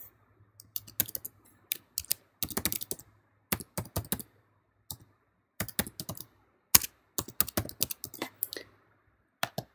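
Keystrokes on a computer keyboard: an email address and then a password typed in quick, irregular runs of clicks with short pauses between them.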